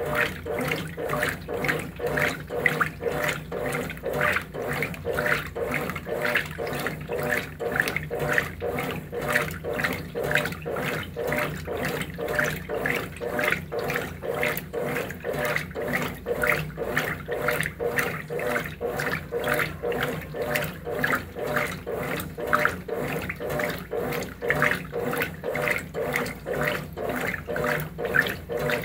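Brastemp BWT12 top-loading washing machine in its wash cycle, agitating the clothes so that the water sloshes in regular pulses, about two or three a second, over a steady motor hum.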